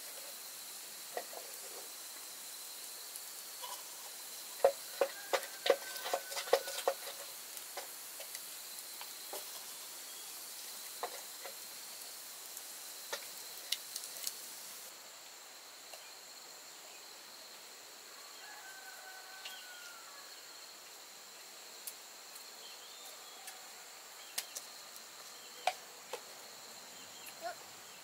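Rural outdoor ambience: insects droning steadily at a high pitch, with a quick run of sharp clicks about five seconds in, scattered single clicks, and a few short chicken calls.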